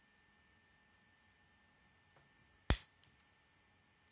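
Plastic K'nex pieces snapping together: one loud, sharp snap about two-thirds of the way through, then a couple of faint clicks.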